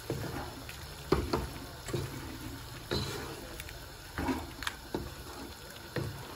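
A spoon stirring chicken pieces through spices in their own watery juices in a pan on high heat: wet, sloshing stirring, with the spoon knocking and scraping against the pan every second or so.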